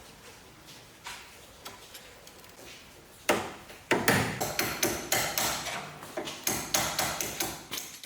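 A few faint clicks, then from about three seconds in a quick series of sharp knocks, roughly three a second, like hammering or tapping.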